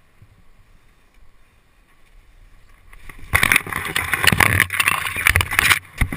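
Leaves and branches rustling and crackling loudly against the camera as a climber pushes down through a tree, starting about three seconds in. A short thump near the end as he lands on the ground.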